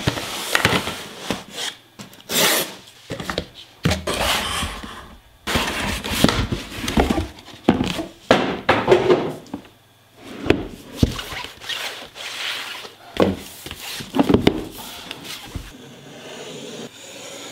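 A shrink-wrapped laptop box being handled and shifted on a wooden desk: irregular rubbing, rustling and thunks of the box against the wood and against hands.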